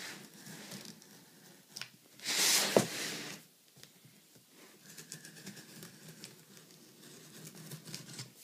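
A knife blade slitting the packing tape along a cardboard box's seams: faint scraping and scratching, with one loud tearing rip lasting about a second a couple of seconds in.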